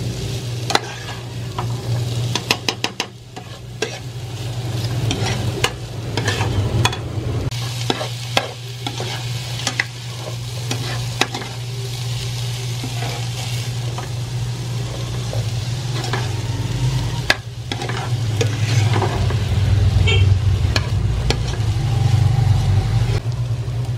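Diced vegetables sizzling as they sauté in oil in an enamel pan, while a metal spoon stirs and scrapes them, tapping against the pan with frequent sharp clicks and a quick run of clicks about three seconds in. A steady low hum runs underneath.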